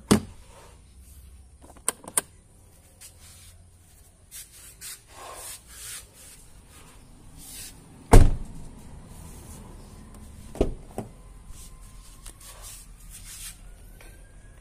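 Clicks and knocks from handling a car door and its trim, with one heavy thump about eight seconds in and a smaller one a couple of seconds later.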